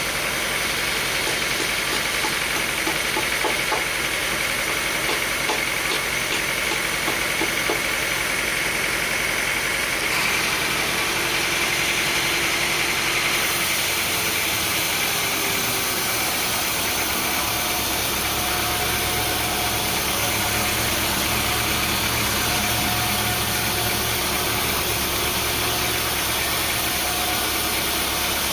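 Sawmill machinery running steadily, a constant mechanical din with a faint whine. The sound shifts in character about ten seconds in and again about fourteen seconds in.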